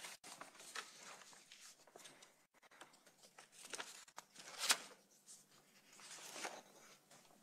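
Faint rustling and small knocks as a man drinks from a glass of water at a desk microphone, with one louder short sound about four and a half seconds in.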